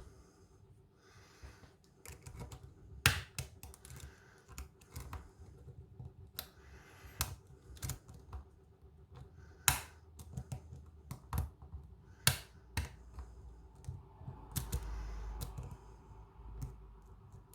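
Lock pick and tension wrench working the pins of a Kik cylinder: irregular sharp clicks and taps, a few much louder than the rest, with a longer low rustle of handling near the end.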